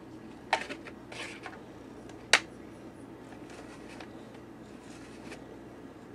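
Stiff plastic packaging being handled: a few short clicks and crinkles in the first second and a half, then one sharp, loud click about two seconds in, over a low steady room hum.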